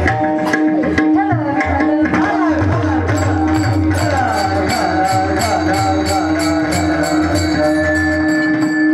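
Kirtan music: a hand drum and small brass hand cymbals keep a steady beat over a held drone note, with singing. From about three seconds in, the cymbal clashes come about three times a second.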